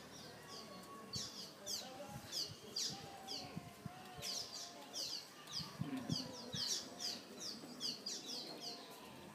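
Birds chirping: a steady run of quick, high chirps that slide downward in pitch, about two a second, with faint low knocks underneath.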